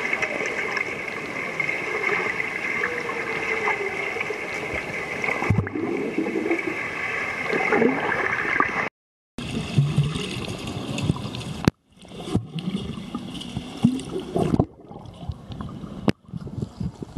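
Pool water heard from under the surface: gurgling and bubbling as a child swims past an underwater camera, with bubbles streaming by near the end. The sound cuts out completely for a moment about nine seconds in and again near twelve seconds.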